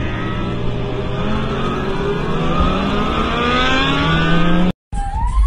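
Motorcycle engine accelerating, its pitch climbing steadily, under heavy wind noise on a helmet microphone. Near the end the sound cuts off abruptly and a police siren starts, rising in pitch.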